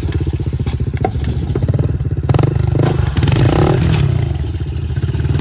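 Dirt bike engine running at idle close by with a fast, even pulse, its revs rising and falling briefly about three seconds in. A few sharp clatters and scrapes are mixed in.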